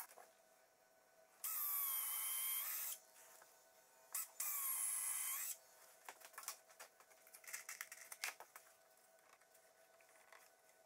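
Cordless drill running in two bursts of about a second and a half each, spinning up and winding down, boring holes for wooden dowels. A few light taps and clicks follow.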